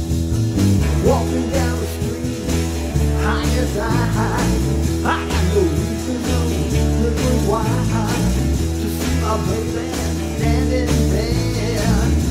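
Garage-rock band music from a multi-tracked home recording: drum kit, electric bass and electric guitar playing a steady beat.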